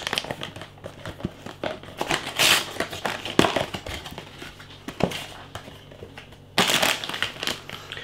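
Cardboard food box being handled and opened and a plastic bag pulled out of it: crinkling, rustling and small crackles, with a louder rustle lasting about a second near the end.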